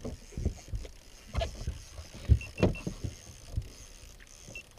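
Irregular knocks and thumps in an aluminum fishing boat, with water splashing, as a hooked musky is fought right at the boat's side. There are three short high beeps about halfway through and one more near the end.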